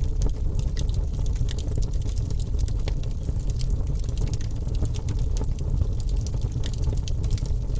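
Rain falling steadily, many separate drops striking close by over a low, continuous rush of water.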